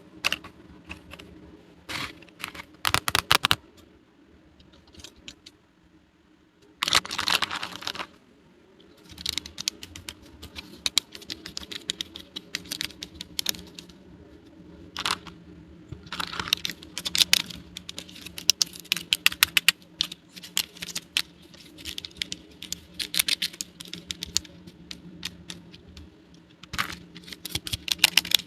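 Small plastic toy pieces being handled and set down: quick clusters of light clicks and taps, with a second-long rustle about seven seconds in.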